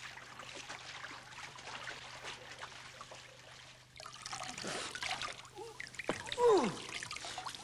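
Splashing, gurgling water as a figure plunges under and sinks, swelling about four seconds in, with a short loud falling sound near the end.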